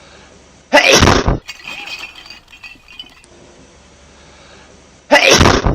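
Crash and breakage sounds: a loud sudden burst about a second in, then clinking and clattering like breaking glass, and a second loud burst near the end.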